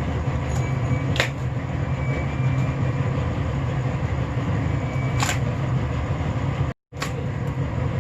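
Boat engine running steadily with a low, even rumble and hum. Two short sharp clicks come about a second in and again about five seconds in, and the sound cuts out for a moment near the end.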